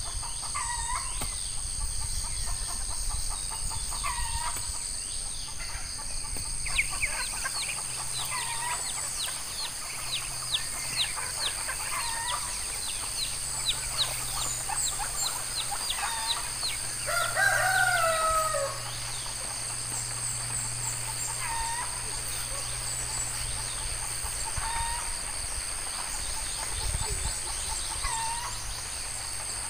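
Farmyard chickens: a rooster crows once, loudest, about two-thirds of the way through. Short bird calls repeat every few seconds over a steady, high-pitched insect drone.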